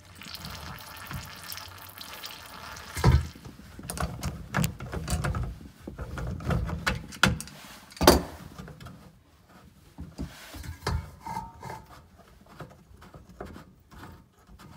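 Knocks and clatter of plastic sink drain pipes and a metal catch bowl being handled under a kitchen sink, loudest in two sharp knocks about three and eight seconds in. Water runs steadily for the first few seconds.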